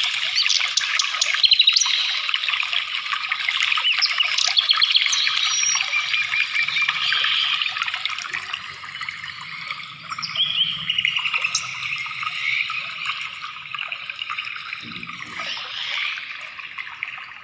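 Many small birds chirping and twittering together in a continuous dense chorus of short, quick rising and falling notes.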